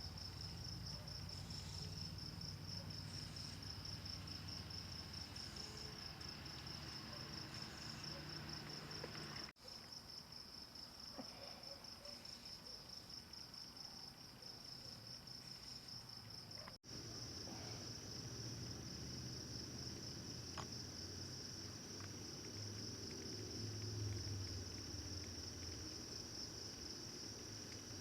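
Crickets trilling in a steady chorus: one unbroken high-pitched pulsing drone, with a faint low rumble underneath. The sound drops out for an instant twice, about ten seconds in and again about seven seconds later.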